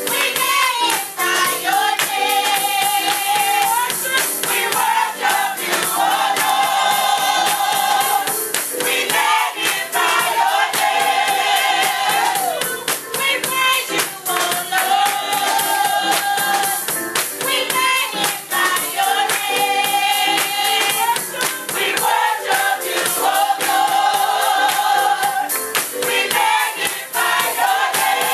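Gospel choir of women singing together, with long held notes coming back in phrases every few seconds, over steady rhythmic handclapping.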